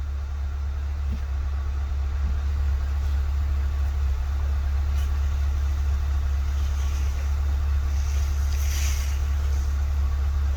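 A vehicle engine idling: a steady low hum throughout, with a brief soft hiss about two-thirds of the way through.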